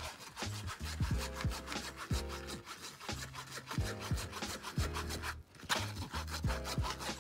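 Background music with a steady beat: deep bass notes and sliding bass drops under fast ticking percussion, with a short break about five seconds in.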